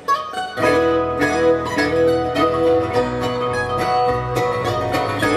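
Bluegrass band playing an instrumental break: quick picked notes on plucked string instruments over a steady bass line, after a brief lull at the very start.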